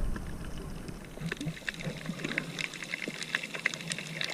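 Shallow sea water splashing and trickling, with many small scattered clicks and drips over a faint low steady hum.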